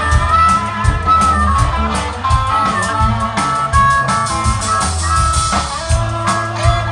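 A rock band playing live, with electric guitars and drums.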